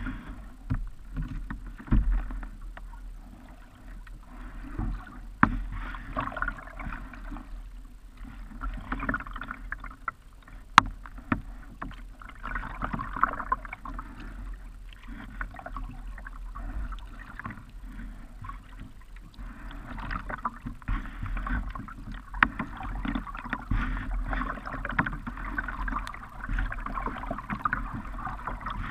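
Kayak paddling on calm river water: the paddle blades dipping and pulling, with splashing and dripping that swell and fade every few seconds and run more steadily near the end, over a low rumble. A few sharp knocks, the loudest about eleven seconds in.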